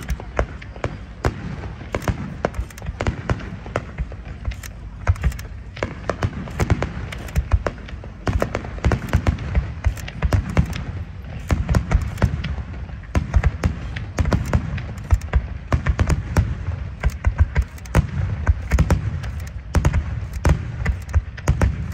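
A continuous fireworks barrage: aerial shells launching and bursting in quick succession, sharp bangs several times a second over a steady deep rumble of booms.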